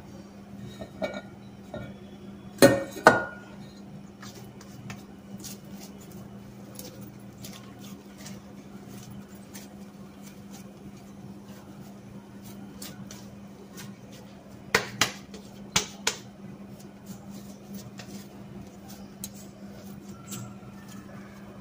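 Sharp metallic clinks and knocks against a stainless steel bowl as dough is handled over it: two loud knocks about three seconds in and three more around fifteen seconds, with lighter ticks between, over a steady low hum.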